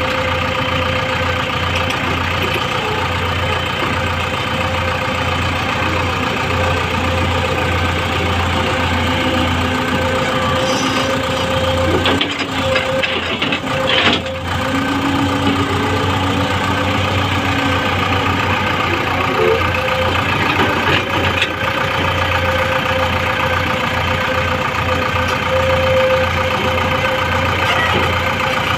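Komatsu PC200 hydraulic excavator's six-cylinder diesel engine running steadily as the machine digs and loads soil, a constant low drone with a held whine above it. The sound is briefly uneven about halfway through.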